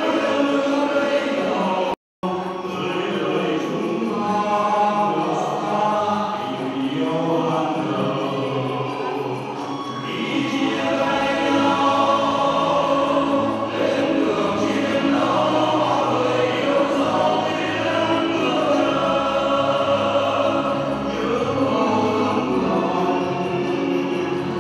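A small group of men singing together through microphones, with instrumental accompaniment and a steady bass line. The sound cuts out for a split second about two seconds in.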